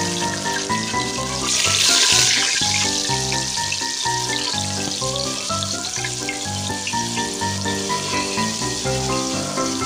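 Fish sizzling as it fries in oil in a small pan, under background music with a steady beat; the sizzle flares loudly for about a second around two seconds in.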